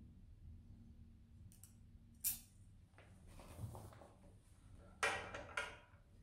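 Faint handling sounds: a short sharp click about two seconds in as the metal eyelet ring is set on the press die. This is followed by a soft rustle of curtain fabric, and about five seconds in a louder cluster of knocks and scrapes as the curtain is laid over the steel platform.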